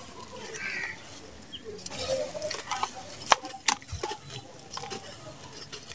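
Damp sand slabs being crumbled and crushed by hand over a metal basin: gritty crunching and falling grains, with a few sharp crackles in the middle and near the end.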